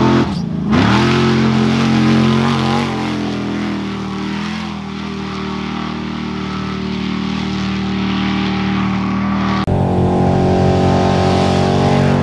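Trophy truck race engine rising and falling in pitch at the very start, then holding a steady high-revving drone. About ten seconds in the sound switches abruptly to another steady engine drone.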